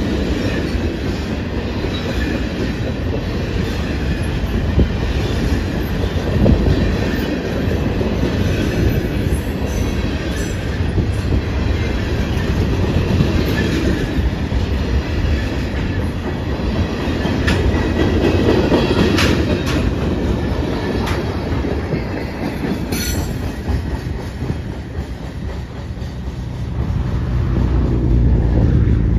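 Covered hopper cars of a freight train rolling past on steel rails: a steady noise of wheels on track, with a few sharp metallic clicks scattered through.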